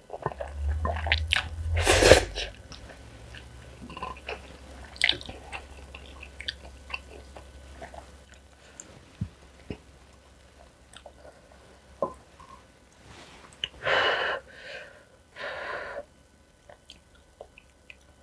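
Close-miked chewing of black bean sauce ramen noodles, with small wet clicks throughout and a few short louder noisy sounds, about two seconds in and twice near the end.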